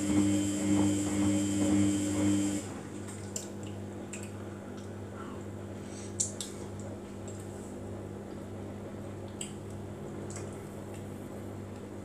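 Samsung front-loading washing machine tumbling its wash load with a steady motor hum, which cuts off about two and a half seconds in. The drum then pauses, with water dripping and settling inside and a few small clicks.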